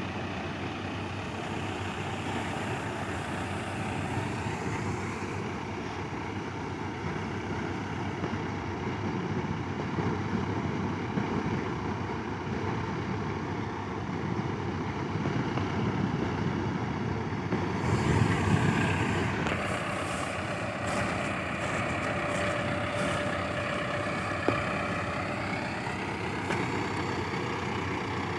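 Tractor diesel engine running steadily, swelling to a louder surge about two-thirds of the way through, then with a higher whine that rises and falls.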